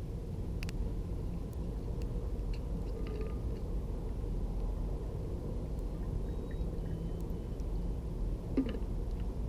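A few faint pops and clicks from a campfire over a steady low rumble.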